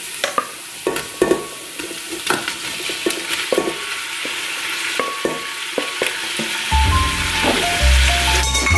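Onions and garlic frying in oil in a steel pot, sizzling steadily as pieces of smoked chicken are tipped in, with short clicks and scrapes of a spoon and steel bowl against the pot. Background music with a bass line comes in near the end.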